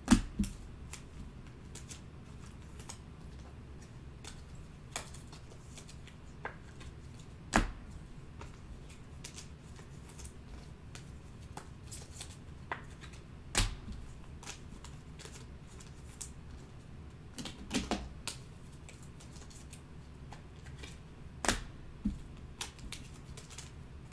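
Scattered light clicks and taps from hands working at a desk, with a handful of sharper knocks spread irregularly through.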